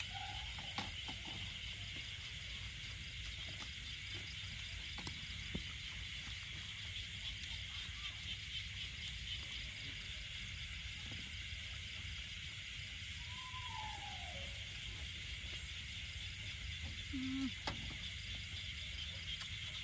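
Night insects chirring in a steady high, finely pulsing drone, with a few light clicks and taps from utensils on a plate.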